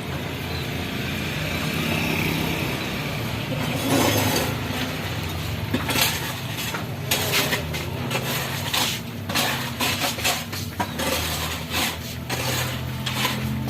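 Utensils clinking against pots and dishes in a home kitchen, as the cooked tauco is dished up: a run of short, uneven knocks and clinks from about halfway in, over a steady low hum.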